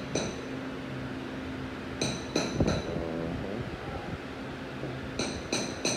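Light metallic clinks, small hard metal pieces touching and ringing briefly: three in quick succession about two seconds in and three more near the end, over the steady hum of a fan.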